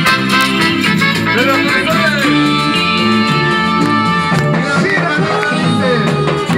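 Live Latin band music: a wavering lead melody that bends in pitch over a steady bass line and percussion.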